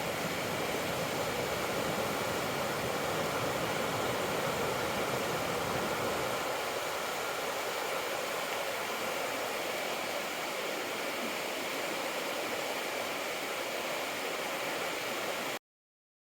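Steady rushing of river water flowing over rocks, an even noise that cuts off abruptly near the end.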